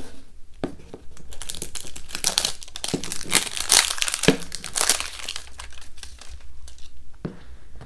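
Crinkly wrapper being torn and peeled off a plastic Hatchimals toy egg by hand: dense crinkling from about a second in, loudest in the middle, thinning out to a few light rustles and clicks near the end.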